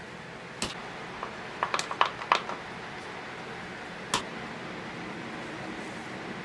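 Light clicks and taps of potting work in a plastic window-box planter: a small hand trowel and plastic plant pots handled in soil, with a quick run of taps about two seconds in and a single one near four seconds, over a steady low hiss.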